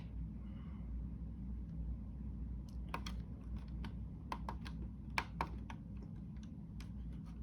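Irregular clicks of keys being pressed, a few a second, starting a few seconds in, over a low steady hum.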